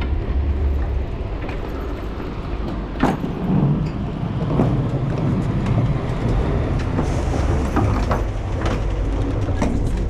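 Steady low engine rumble of a motor vehicle, with scattered clicks and knocks, the sharpest about three seconds in.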